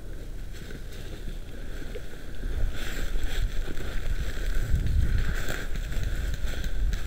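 Footsteps crunching and rustling through dry leaf litter as the camera wearer moves quickly, with deep rumbling wind and handling noise on the body-worn camera's microphone. It gets louder about two and a half seconds in.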